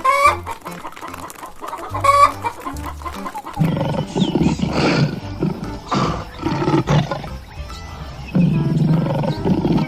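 Chickens clucking, with short pitched calls at first and a denser run of clucks from about a third of the way in, over background music.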